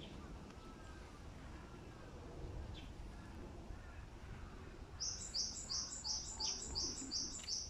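A songbird calling: a quick run of about eight high, evenly repeated notes, roughly three a second, starting about five seconds in, over a low background hum of the park.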